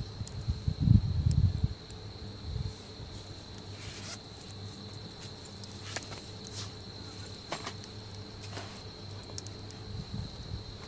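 An insect trilling on one steady high note. There are some low thumps in the first two seconds and a few scattered sharp ticks.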